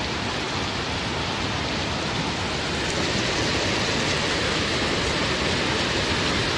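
Heavy rain falling over a fast-flowing floodwater torrent: a steady hiss that grows slightly louder about three seconds in.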